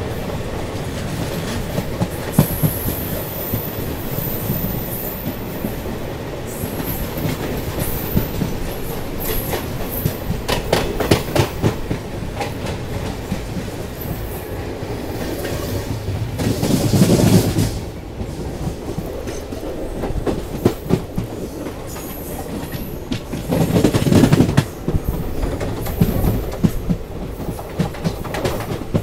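Passenger coach of an express train running at speed: a steady rumble of the wheels with rhythmic clickety-clack over the rail joints. Twice, about a second and a half at a time, the noise swells into a louder rush.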